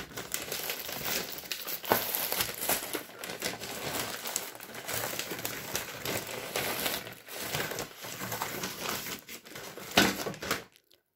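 Plastic mailer bag and plastic-wrapped packages crinkling and rustling as hands rummage through them, with a louder crackle about ten seconds in.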